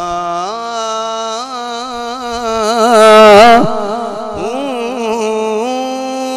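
A man singing a long wordless, ornamented line of a devotional Punjabi verse, sliding and wavering between held notes. He swells loudest about three seconds in, then steps up and holds a steady note near the end.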